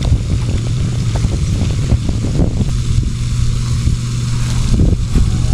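Boat motor running with a steady low hum, with short knocks and wind buffeting over it.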